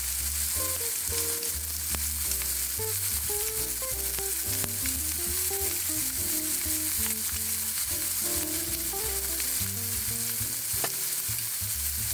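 Meat sizzling steadily as it grills, with background music playing over it: a melody above a bass line.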